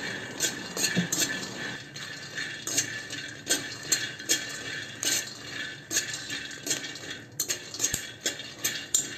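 Metal spatula stirring and scraping peanuts roasting in a stainless-steel pan, with irregular clinks and scrapes about one or two a second as the nuts rattle against the steel.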